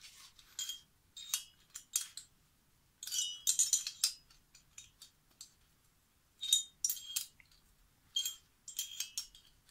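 Metal tools clicking and clinking in short runs with pauses between, as a small socket wrench fitted over a long Allen key tightens the cylinder head bolts of a 29cc Baja two-stroke engine crisscross.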